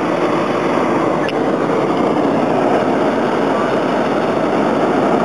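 Hot-air balloon's propane burner firing in one loud, steady blast.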